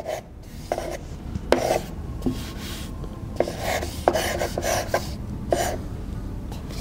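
Chalk scraping across a blackboard in a string of short, irregular strokes as a drawn profile is shaded in.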